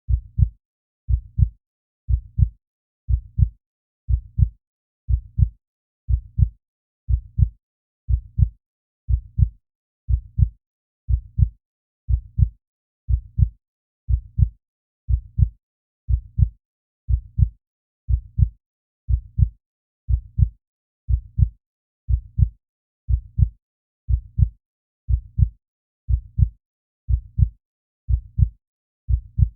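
Heartbeat sound: a steady, slow rhythm of low double thumps (lub-dub), about one beat a second.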